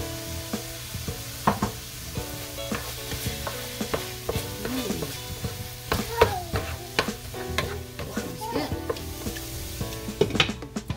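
Diced vegetables sizzling in a frying pan while a wooden spatula stirs and scrapes them, with many small clicks and knocks against the pan. Near the end a glass pan lid clinks as it is set on.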